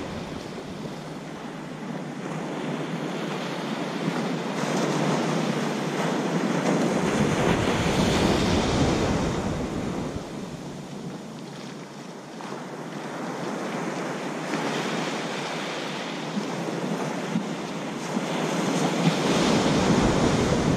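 Ocean surf breaking and washing up the beach, swelling and ebbing every few seconds. Wind gusts on the microphone come and go as a low rumble.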